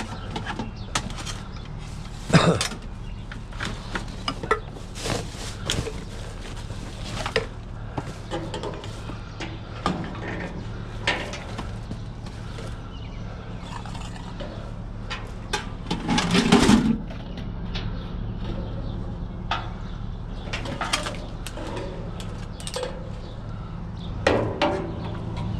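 Scattered metallic clanks and knocks of scrap metal being handled, the loudest about two and a half seconds in and a louder clattering stretch about two-thirds of the way through, over a steady low hum.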